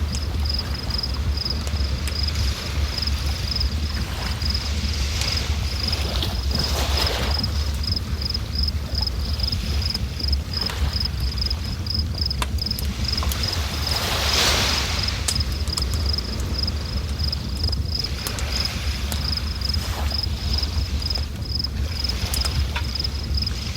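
River water flowing in a steady rush over a deep rumble, swelling now and then, with an insect chirping in a high, even pulse of about three chirps a second.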